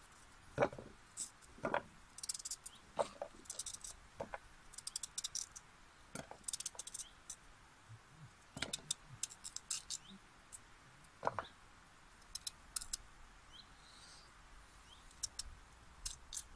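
Knife cutting a raw sweet potato into small pieces over a camping pot: irregular small knocks and clusters of faint clicks.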